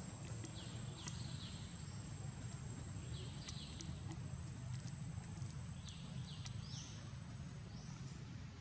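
Outdoor ambience: short high chirps roughly every second over a steady low rumble, with a thin steady high tone and a few faint clicks.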